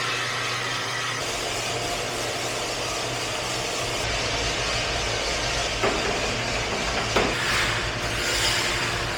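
Coffee roaster running steadily: the motor and fan hum under an even hiss, with a couple of faint knocks partway through.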